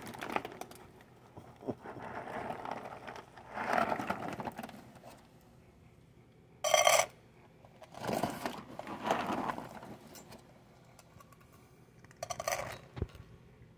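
Dry cat kibble dropped by the handful into a stainless steel bowl: a short rattle about seven seconds in, and a fainter one near the end. In between there is soft rustling of hands and the food bag.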